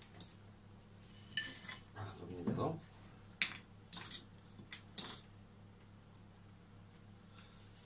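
Metal hand tools clinking and clicking on a workbench while a cordless drill is picked up and a bit is fitted into its chuck. A handful of short, sharp clicks come between about one and a half and five seconds in.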